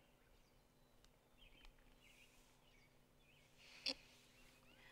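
Near silence: faint outdoor ambience with a few faint bird chirps, and one brief nasal 'hm' from a person about four seconds in.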